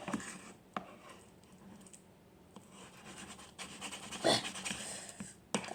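A person panting hard through the mouth: several noisy breaths, the loudest about four seconds in, from the burn of spicy Buldak noodles.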